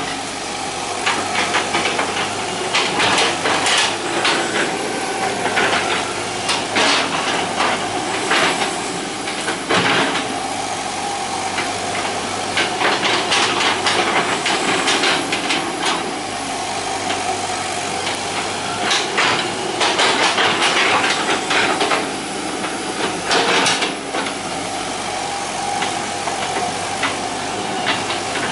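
Hitachi EX120 hydraulic excavator at work: its diesel engine runs steadily under load with a hydraulic hiss. Over it come repeated, irregular scrapes and clanks as the steel bucket drags and knocks through the soil.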